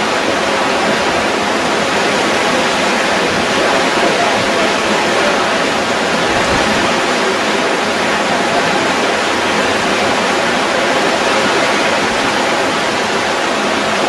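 Fast-flowing floodwater rushing and churning down a street in a steady, loud torrent.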